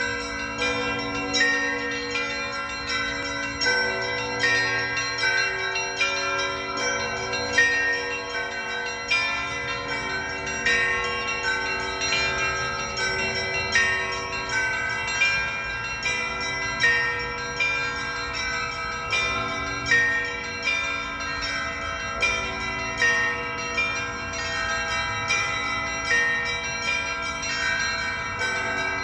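Russian church bells rung together in a peal (zvon): smaller bells struck in quick patterns over a louder stroke about every second and a half, each stroke ringing on.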